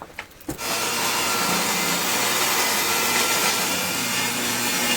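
Electric saw ripping a wooden board lengthwise to width. It starts up about half a second in and runs steadily through the cut.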